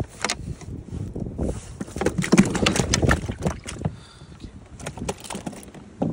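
Handling noise: a run of knocks and rustles as a landing net holding a carp is moved about in a small boat, densest about two to three and a half seconds in.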